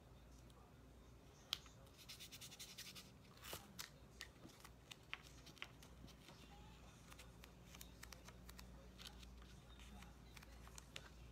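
Faint rustling and light scratching as an adhesive silk-screen transfer is handled, positioned and pressed down onto a sign by hand. There is a short run of quick scratchy strokes about two seconds in and a few scattered soft clicks.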